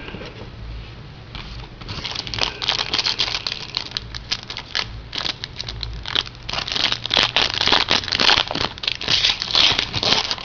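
Plastic trading-card pack wrapper being torn and crinkled by hand as a pack of football cards is opened. It is quiet at first, then a dense run of irregular crackling from about two seconds in.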